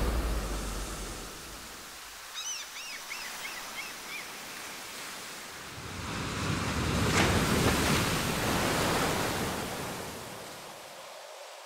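Ocean surf breaking against sea cliffs, a steady wash of water that fades, swells again in the middle and dies away near the end. A short run of high chirps comes about two and a half seconds in.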